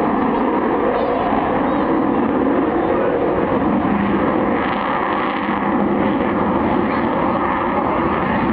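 Loud, steady jet noise from the Avro Vulcan's four Rolls-Royce Olympus turbojets as the delta-wing bomber flies its display.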